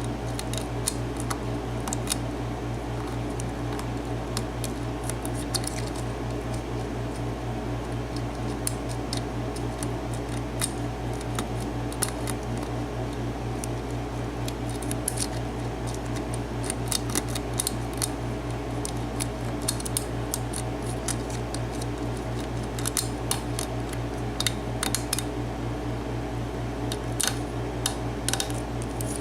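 Lock pick working the pins of a Corbin-Russwin six-pin lock cylinder under light tension: scattered small metallic clicks and ticks as the pins are lifted and set, over a steady low electrical hum.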